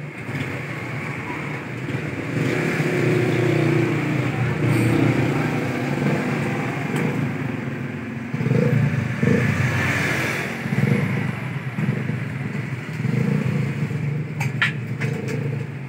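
Motor vehicle engines running and passing, swelling and fading several times, with a few sharp clicks near the end.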